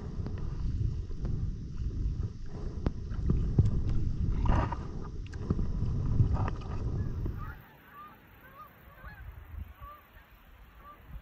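Kayak paddling: paddle strokes in the water with sharp knocks and a heavy low rumble. About seven and a half seconds in, it cuts abruptly to a faint flock of geese honking overhead, many short calls overlapping.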